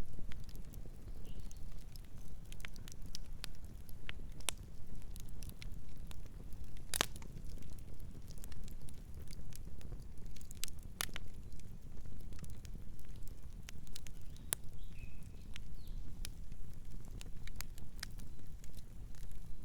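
Campfire burning, with irregular sharp crackles and pops over a low steady rumble; the loudest pops come about a third and halfway in.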